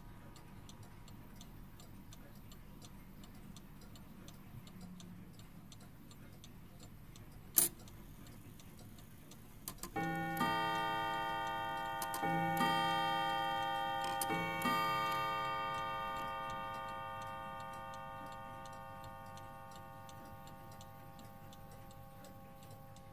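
Mantel clock ticking steadily, then a sharp click, then its three-quarter ting-tang: three pairs of notes on two tuned gongs struck by leather-faced hammers for a mellow tone. The pairs come about two seconds apart, starting about ten seconds in, and ring on, slowly fading.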